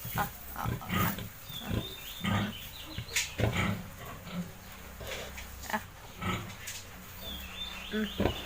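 Landrace sow close to farrowing, grunting in short, repeated grunts.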